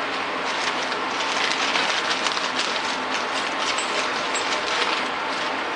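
Clear plastic zip-lock parts bag crinkling in the hands as it is handled, a dense crackle from about half a second in until about five seconds in.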